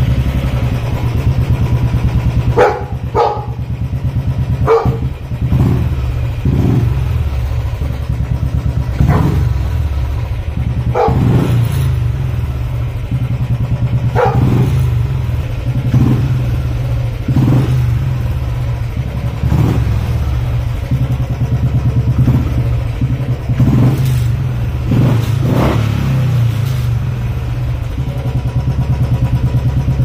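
Royal Enfield Bullet's single-cylinder engine idling steadily through a wild boar aftermarket silencer, a deep, heavy exhaust throb. A dog barks at it repeatedly, in short single barks spread over the whole stretch.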